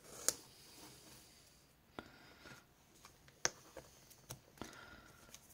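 Quiet handling of paper and tape: washi tape being pressed and smoothed onto a planner page, with faint rustling and several light clicks.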